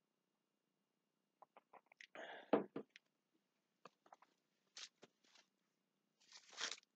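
Faint handling sounds of a mug being drunk from and set down: scattered small clicks, a louder clunk about two and a half seconds in, then a short hiss near the end.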